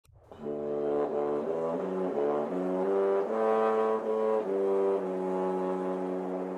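A short brass fanfare: a run of changing notes, then a long held final note from about two-thirds of the way in.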